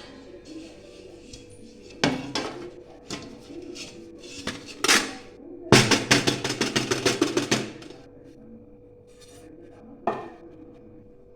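Cake tin being knocked and tapped to turn a cooled cake out: a few separate knocks, then a quick run of taps for about two seconds, and one last knock near the end. Faint background music underneath.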